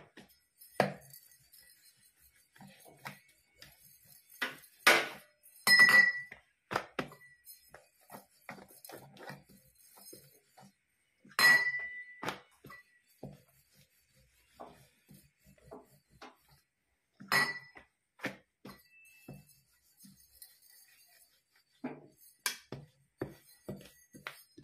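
Stainless-steel rolling pin and steel plate knocking and clinking while dough is rolled out, with softer rolling and rubbing sounds between. A few louder clanks ring briefly, about five, eleven and seventeen seconds in.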